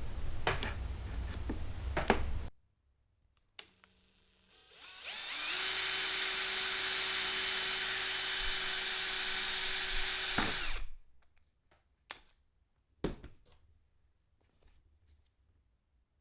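Power drill spinning up and running at a steady pitch for about five seconds before stopping, drilling into a wooden plug in a chair frame. It is preceded by a steady hiss with a few clicks, and a couple of sharp clicks follow.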